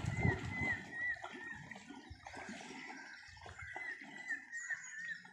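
Water sloshing and lapping faintly around a small wooden canoe, while a bird gives short repeated chirps in clusters in the background.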